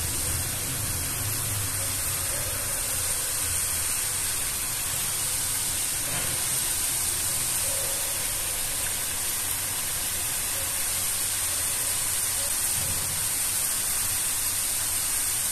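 Hot oil sizzling steadily as thick chickpea-flour (besan) sev fries in a kadhai, a constant high hiss.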